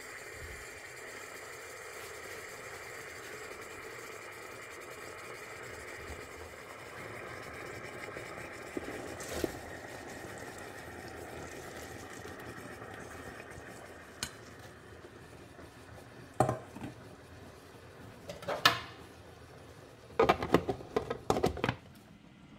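Cookware being handled in a kitchen: a steady hum in the background, then several sharp knocks and a quick run of clattering near the end.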